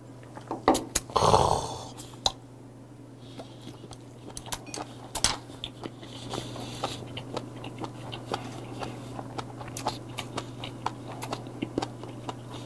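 Close-miked chewing of komochi yariika, spear squid stuffed with herring roe, as many small crisp crunches and clicks. About a second in there is a short, louder rush of noise.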